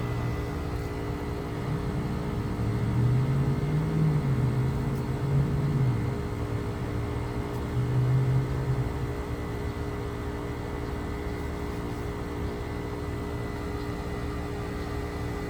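1989 Carrier TECH 2000 heat pump outdoor unit running steadily through its defrost cycle, a constant mechanical hum with a steady whine over it. A louder low drone rises and falls from about two to nine seconds in.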